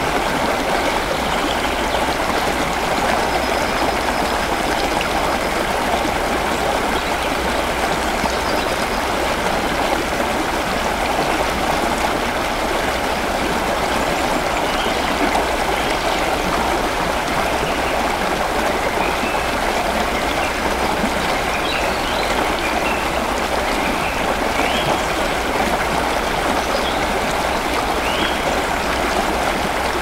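River water falling and flowing, a steady even rush. A few faint short bird chirps come through now and then, mostly in the second half.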